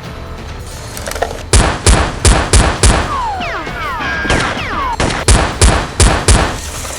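Two rapid bursts of gunfire, about five shots each, the first starting about a second and a half in and the second near the end, with a single shot between them.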